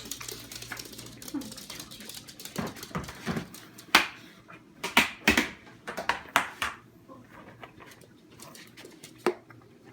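A pet with a cold coughing in a fit of short, harsh coughs, about a dozen in quick succession from a couple of seconds in, then one more cough near the end.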